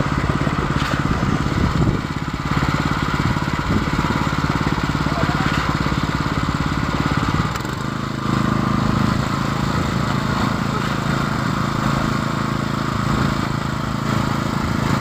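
Concrete pump's engine running steadily, with a short dip in level about halfway through.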